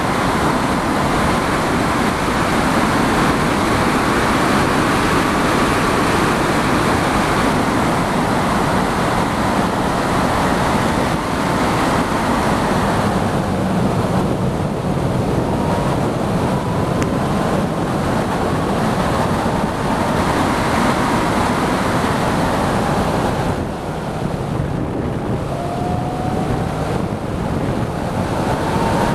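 Heavy wind noise buffeting the microphone in an Ariel Atom's open cockpit at track speed. The engine's note is faintly audible beneath it and rises near the end as the car accelerates out of a bend.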